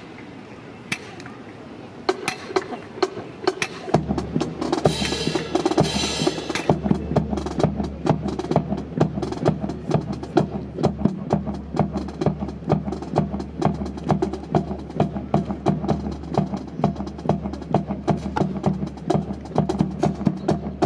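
A few sharp clacks, then about four seconds in, drum-led backing music starts: a steady low bass tone under a fast, even run of snare-like strikes.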